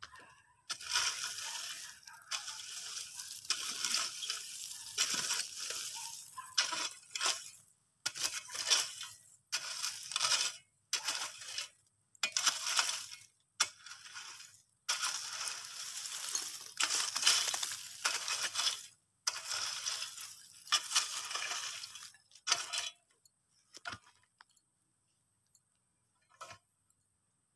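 Metal-tined rake dragging through gravelly earth and lumps of charcoal, scraping and clinking, as finished charcoal is raked out from under the soil covering of an earth burn. One long stretch of scraping runs into a series of separate rake strokes, which stop a few seconds before the end.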